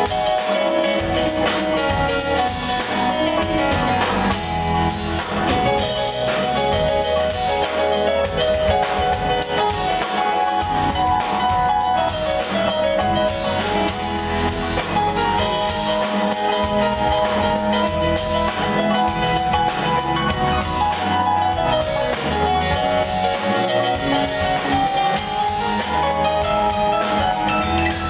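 Live rock band playing an instrumental passage: electric guitars and keyboards over bass and a drum kit, at a steady, loud level.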